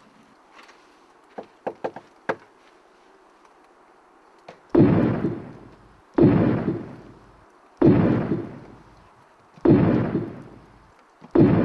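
Five heavy knocks pounding on a door, about one every second and a half, each ringing on briefly, after a few light taps.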